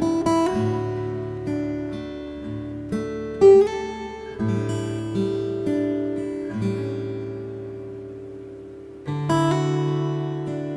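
Solo acoustic guitar playing slow, gentle music: chords plucked or strummed and left to ring out, with single picked notes between them and a fresh strummed chord about nine seconds in.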